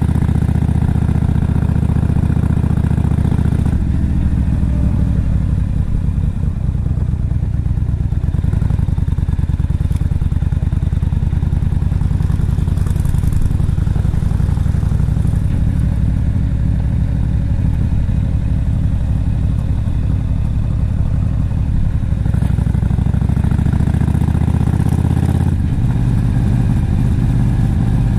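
Yamaha XVS1300CU Stryker's V-twin engine running as the motorcycle rides at low speed. The engine note eases off about four seconds in and picks up again near the end.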